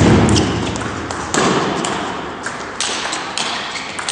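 Table tennis ball being struck back and forth in a rally: sharp clicks of bats and table bounces, the main strokes about a second and a half apart, each echoing in a large hall.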